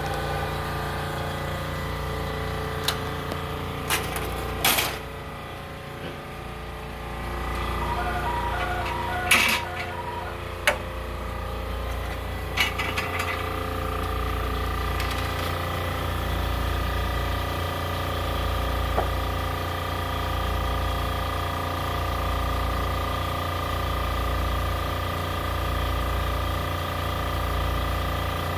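Ryobi 662H offset printing press running slowly with a steady machine hum and a low pulse about once a second as the cylinders turn. Several sharp clicks and knocks come in the first dozen seconds, with a short run of beeps about eight seconds in.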